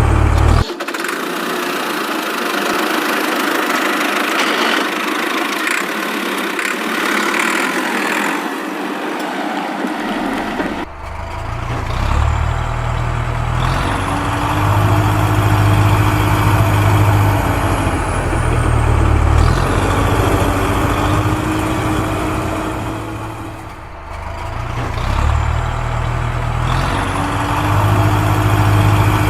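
Heavy-vehicle engine sound running in repeating cycles of about six seconds, each one rising and then settling back, after about ten seconds of a thinner hiss with no low rumble.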